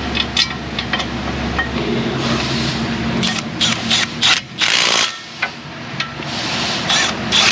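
Tools clicking and knocking against metal brake parts, with short bursts of hiss midway and near the end.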